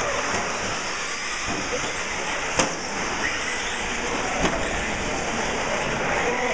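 Radio-controlled short-course trucks racing on an indoor track, their electric motors and tyres making a steady whirring hiss. There is one sharp knock about two and a half seconds in and a smaller one a couple of seconds later.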